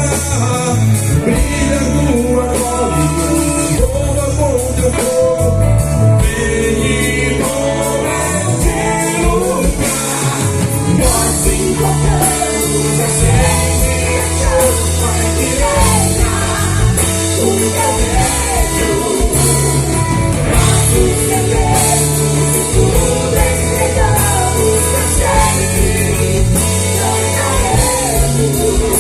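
Live gospel worship band playing a rock-style song: a lead singer over electric guitar, bass and drums.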